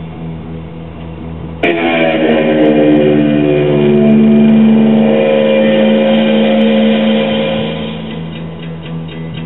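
An LP playing on a 1965 Magnavox Astro-Sonic solid-state console stereo: a low hum, then about a second and a half in guitar music starts with a sharp chord that rings out and slowly fades, with more playing after.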